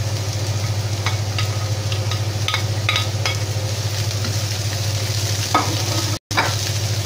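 Shredded cabbage and carrot frying in a pan, sizzling as a wooden spatula stirs and scrapes it, with a few sharp clicks of the spatula against the pan. A steady low hum runs underneath, and the sound cuts out for a moment near the end.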